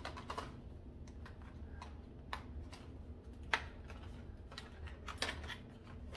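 Light, irregular clicks and taps of a toddler's ring-chute toy and its rings being handled, with one sharper click about three and a half seconds in.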